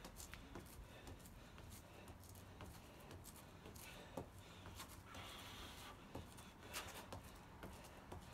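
Near silence, with faint, irregular scuffs and taps of trainers on patio paving stones as the feet step in and out during mountain climbers.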